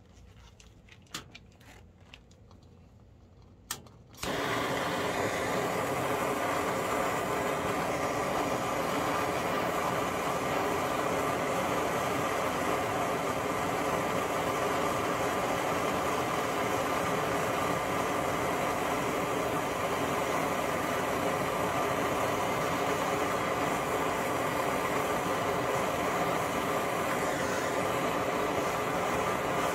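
A few clicks, then about four seconds in a handheld gas torch lights with a sudden onset and runs with a steady flame noise, heating a gold coin to red heat.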